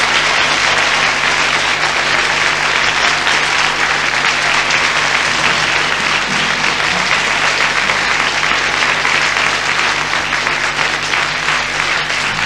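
Audience applauding steadily after a song, a dense even clapping that fades slightly near the end.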